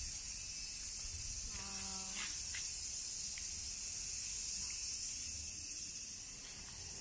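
A chorus of cicadas buzzing in a steady, high-pitched drone. A person makes a short voiced sound about two seconds in.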